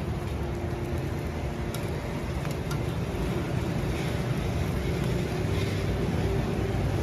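Steady low rumble of a busy roadside tea stall, with a few light clinks about two seconds in.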